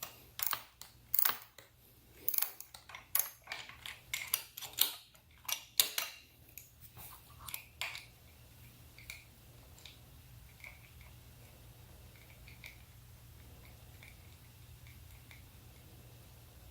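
Irregular sharp clicks and knocks of hand tools and small hard parts being handled during hands-on assembly work. They fade after about eight seconds to a few faint ticks.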